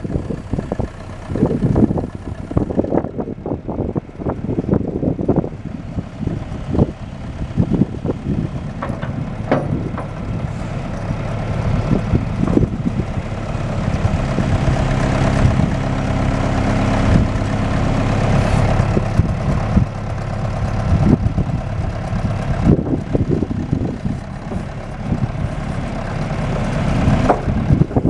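John Deere 510C loader backhoe's diesel engine running. It speeds up for a stretch in the middle and then eases off again, with scattered knocks and clanks throughout.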